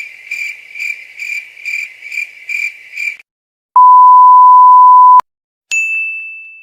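A run of stock editing sound effects: a high beeping tone pulsing about three times a second for about three seconds, then a loud, steady, pure censor bleep about a second and a half long, then a single high ding that fades away.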